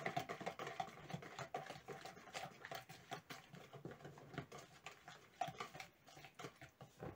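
Flour sifting through a plastic sieve into a bowl of batter as a finger taps the sieve's side: quiet, irregular soft taps and rustling, several a second.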